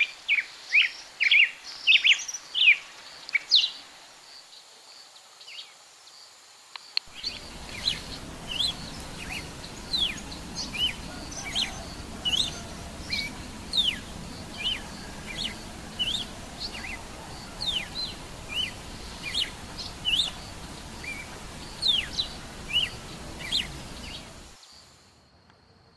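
Songbird calling: a rapid series of short, high notes, each sliding down in pitch, repeated several times a second. About seven seconds in, a steadier background hiss comes in under the calls, and the calls and hiss cut off shortly before the end.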